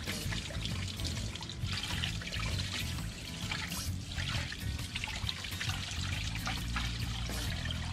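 Rinse water running and splashing over a polished aluminium truck wheel and dribbling onto wet pavement as the polish is washed off, with background music underneath.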